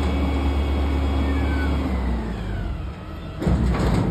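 Peterbilt 320 front-loader garbage truck's engine held at raised revs to drive the hydraulics while the lift arms lower an emptied dumpster. The revs drop off about halfway through. Near the end comes a loud clatter as the metal dumpster comes down onto the pavement.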